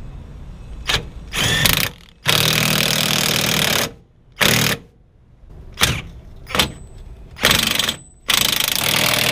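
A half-inch impact wrench hammering the steering rack mounting bolts down, in a string of about eight bursts. Most are short and two run over a second each.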